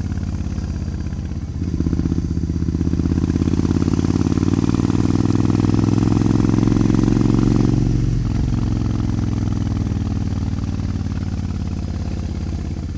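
Suzuki Intruder 1400 V-twin motorcycle running through Vance & Hines Classic II aftermarket pipes. The engine note swells about a second and a half in as the throttle opens, holds strong for several seconds, then eases off and settles to a lighter cruising note.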